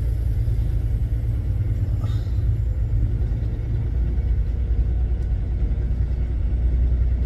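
Steady low rumble of a semi-truck's diesel engine heard from inside the cab.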